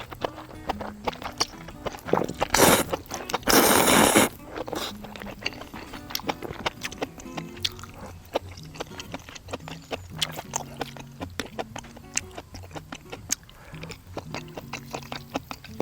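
A person eating bracken ramen: two loud slurps of noodles a few seconds in, then chewing with many small clicks.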